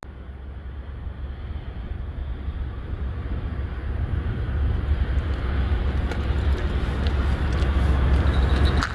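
Wind buffeting the microphone outdoors: a steady, low, noisy rumble with no pitch, growing slowly louder, with a few faint clicks in the second half.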